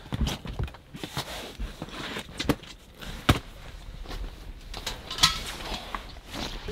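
Rubber boots being pulled off and set down, with clothing and a sleeping bag rustling: irregular rustling with scattered knocks and clicks.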